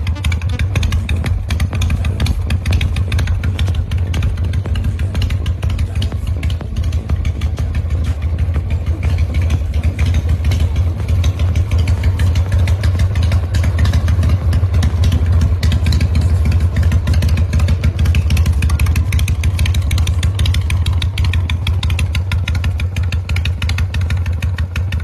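Motorcycle engine running steadily at a low, even idle, a fast regular exhaust pulse with no revving.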